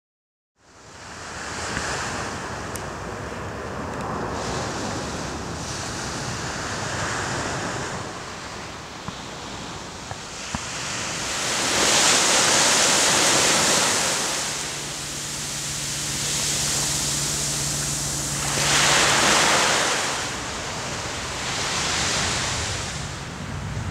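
Small sea waves breaking on a sandy beach, the surf swelling and ebbing, loudest about twelve seconds in and again near nineteen seconds.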